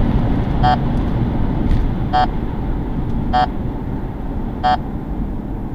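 Steady engine and road noise heard inside a moving car, with a short high electronic beep sounding four times, about every one and a half seconds.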